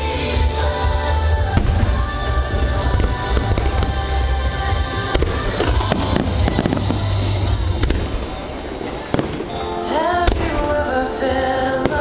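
Fireworks display going off in a series of sharp bangs and crackles, one every second or two, over a soundtrack of music with strong bass.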